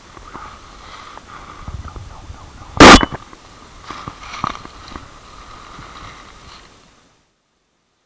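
Footsteps and rustling through dry fallen leaves, with one loud sharp knock or crack about three seconds in. The sound cuts out abruptly to silence about seven seconds in.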